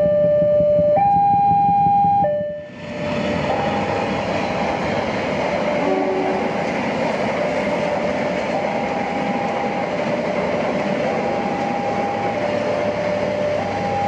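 Railway level-crossing alarm sounding its two alternating tones, each held for about a second. About three seconds in, the noise of a passenger train running past takes over, with the crossing alarm still going beneath it.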